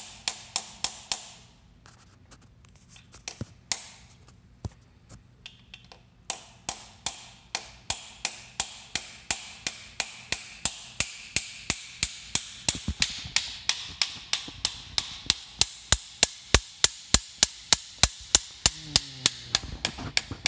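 Hammer tapping the distributor drive gear onto its shaft on a 1969 Jaguar E-Type engine, driving it home. The light taps come about three a second, break off for a few seconds after the start with only a few single taps, then carry on steadily.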